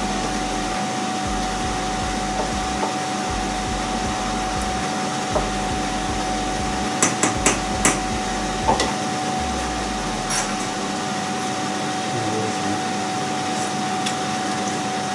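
Steady fan-like kitchen hum, with a quick run of four or five sharp taps about seven seconds in and two more a couple of seconds later: a utensil knocking against the cooking pan.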